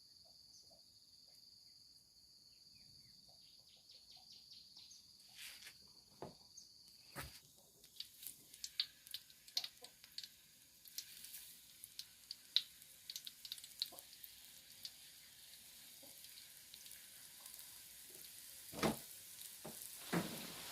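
Pastel pastries frying in hot oil, sizzling with irregular crackles and pops that grow busy after several seconds. Steady high insect buzz is heard at first.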